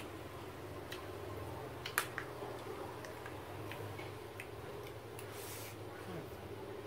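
Eating sounds: a spoon clicking and tapping on a plate of fried rice, with a sharper click about two seconds in and a brief scrape near five seconds, over a steady low hum.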